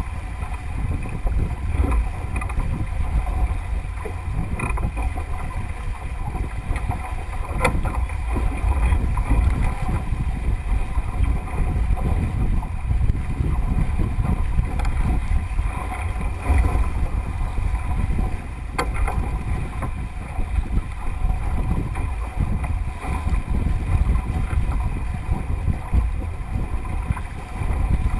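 Wind buffeting the microphone of a deck-mounted camera on a Melges 24 sailboat under sail, with water rushing and splashing along the hull. Two sharp knocks about 8 and 19 seconds in.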